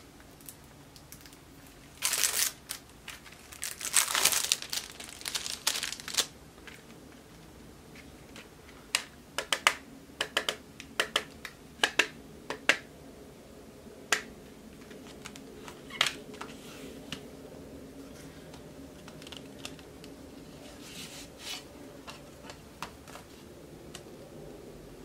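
Plastic wrapping crinkling and tearing in a few loud bursts as a CD album is unwrapped, followed by a run of sharp clicks and taps from a plastic CD jewel case being handled.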